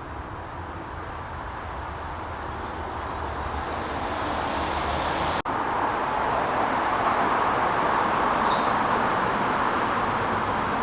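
Road traffic noise, a steady rushing haze that grows louder partway through, with a few faint bird chirps over it.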